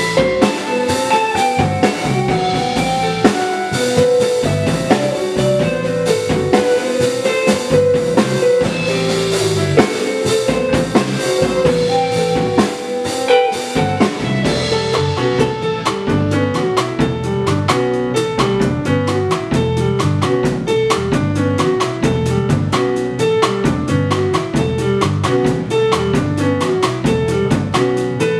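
Live jazz band: electric guitar soloing over piano, electric bass guitar and drum kit. About halfway through, the band moves into a denser, driving rhythmic groove with busy drums.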